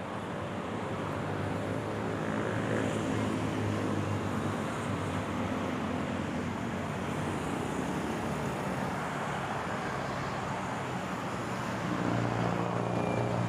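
Road traffic: cars and motorcycles running past on a multi-lane road, a steady rush with a low engine hum. One vehicle passes louder near the end.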